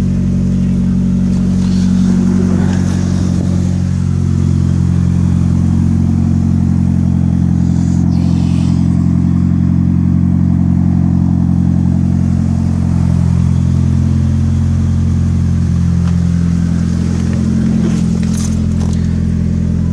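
Turbocharged 4G63 four-cylinder engine of a 1997 Mitsubishi Eclipse GST idling steadily, with a few light clicks and a brief hiss about eight seconds in.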